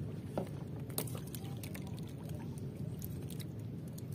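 Scattered light clicks and taps of fishing tackle being handled by hand in a small wooden outrigger boat, over a steady low rumble.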